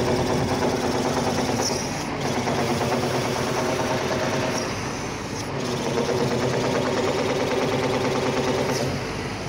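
Atlas 330.1 truck-mounted crane's hydraulic system running under operation with an abnormal metallic drone made of several steady pitches, easing briefly about halfway through and then coming back. The operator has ruled out the relief valve and traces the sound to the hydraulic pump.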